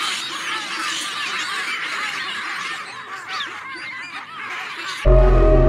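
Many baboons screaming and barking at once in a dense chorus of short, high, sliding calls, easing off a little past the middle. Near the end the calls cut off and loud electronic music starts abruptly.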